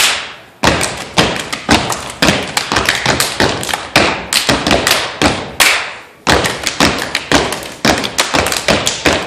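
A step team stepping: boot stomps and hand claps in quick rhythmic patterns, broken by two short pauses, one just after the start and one about six seconds in.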